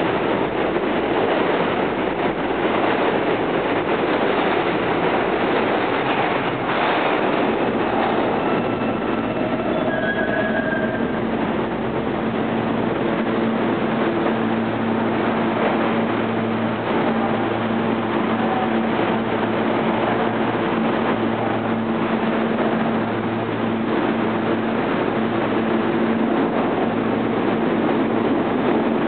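R160-series New York City subway train pulling into the station and slowing to a stop, with wheels rumbling on the rails. A steady motor hum sets in about halfway through.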